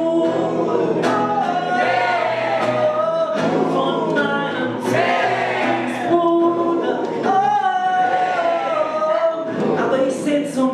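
A man singing long held notes into a microphone while strumming an acoustic guitar.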